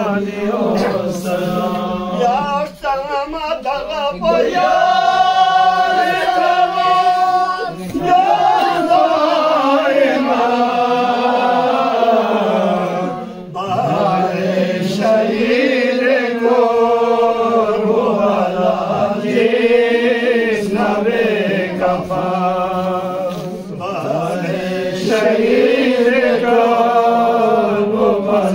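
Unaccompanied male voices chanting a Purig qasida, a devotional poem, in long drawn-out melodic phrases with brief breaths between lines.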